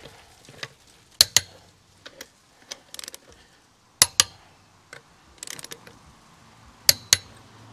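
Click-type torque wrench on a truck's wheel lug nuts, giving three sharp double clicks about three seconds apart, one for each lug nut it is checked on, with lighter clinks of the socket in between. The clicks show each nut has reached the set torque of about 100 foot-pounds.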